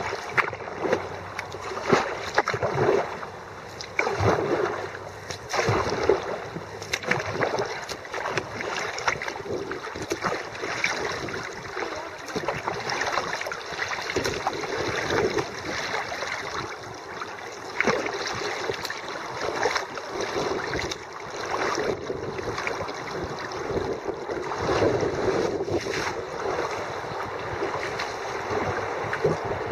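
Kayak paddle strokes dipping and splashing in the water, a stroke every second or two, over a steady wash of moving water.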